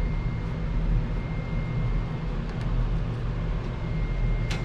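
Steady low hum with a thin, constant high whine from a running shop heater's fan.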